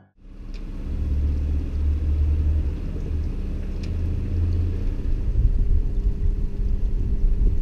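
Sailboat's auxiliary engine running steadily at low speed, a low rumble under the hull.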